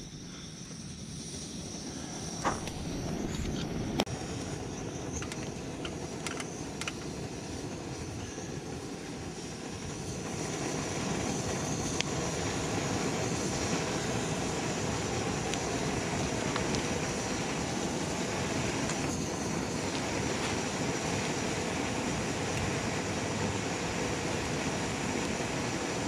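MSR Whisperlite liquid-fuel stove burning with a steady roar like a little rocket, heating a pot of water. A few metal clinks come in the first several seconds as the pot is set on it, and the roar grows louder about ten seconds in.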